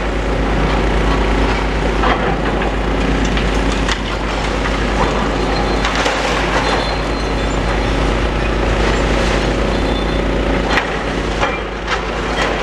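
Demolition excavator running with a steady engine drone as it tears into a building, with continual crunching, cracking and sharp snaps of breaking debris.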